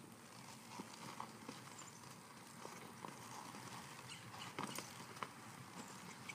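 A horse's hooves walking on a sandy arena: a faint, uneven patter of hoofbeats, with a few sharper clicks between four and a half and five and a half seconds in.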